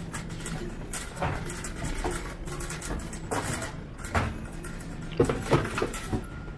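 Supermarket background noise: a low steady hum with scattered knocks and clatter from goods and trolleys.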